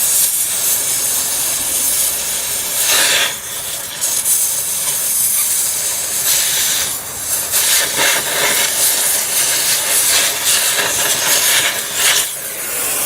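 Cutting torch hissing steadily as it burns through metal, swelling louder and easing off several times.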